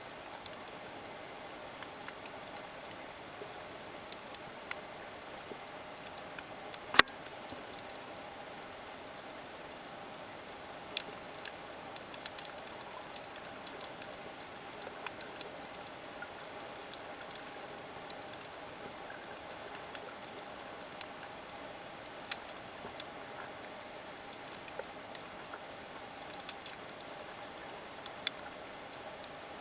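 Underwater reef ambience heard through the camera underwater: a steady hiss with scattered irregular clicks and crackles, and one sharp, much louder click about seven seconds in.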